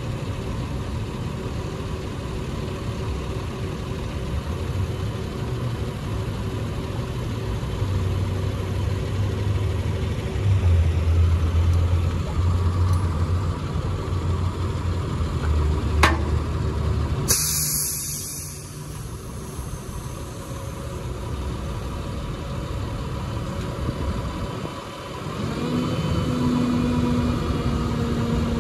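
Truck engine running, its low drone growing louder through the middle, with a sharp click about 16 seconds in and a short hiss just after. Near the end the engine note steps up to a higher steady pitch.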